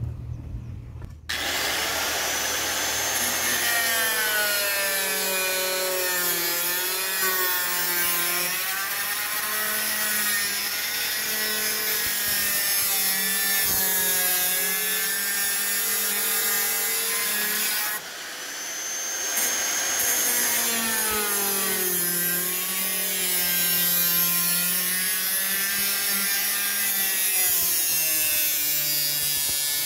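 Makita compact circular saw with a 1 mm abrasive cutting disc cutting through a van's sheet-steel roof panel. It starts about a second in and runs under load, its whine sagging and rising in pitch as the blade is pushed through; just past halfway it briefly eases off and spins back up.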